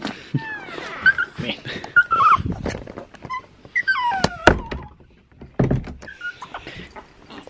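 Pomeranian dogs whining in a series of short high whines, each falling in pitch: distress at someone leaving the house. A sharp thump about four and a half seconds in.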